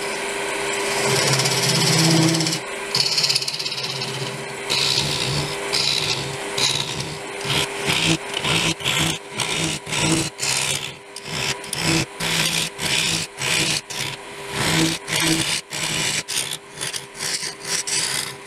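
Wood lathe hollowing the inside of a green pear-wood blank with a hand gouge. The cutting scrapes over the steady hum of the lathe, and in the second half it turns into a run of short repeated cuts, about two a second.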